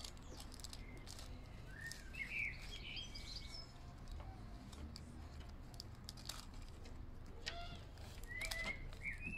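Birds chirping in short bursts, about two seconds in and again near the end, over faint snips and crinkles of scissors cutting through plastic wrap around an egg.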